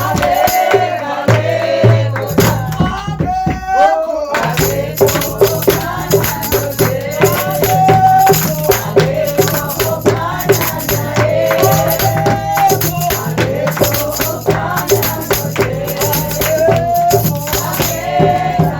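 A group of voices singing a worship chorus in siSwati, with hand rattles shaken in a steady beat.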